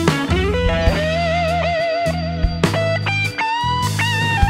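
Background music: a guitar playing a melody over a steady bass line, with a note sliding up near the start and a wavering held note a second or so in.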